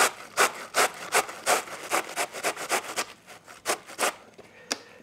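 White cabbage being grated by hand on a stainless steel box grater: quick strokes, about three a second, growing fainter and stopping about four seconds in, with one last stroke near the end.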